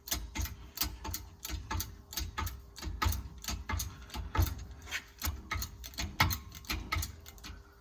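Shop press being worked to push a piston seal over a tapered sleeve: rapid, irregular metallic clicks and knocks with dull thuds, over a faint steady hum.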